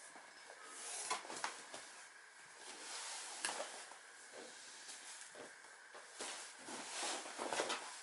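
Shuffling and rustling of a body and hands moving over a vinyl-covered folding exercise mat as a person shifts and positions his legs, with a few sharp taps and clicks.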